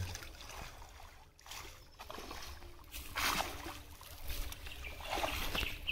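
Water splashing and sloshing in a shallow pond as a cast net holding thrashing fish is gathered up and hauled out, with uneven splashes that are loudest about three seconds in and again near the end.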